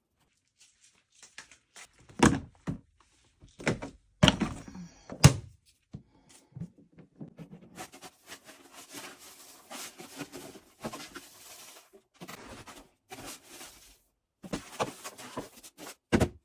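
A series of knocks and thunks, the loudest in the first few seconds, with a stretch of hissy rustling in the middle and more knocks near the end.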